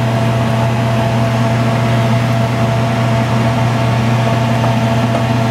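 Steady electric motor hum of a kitchen appliance, low and even, with a few faint steady higher tones above it.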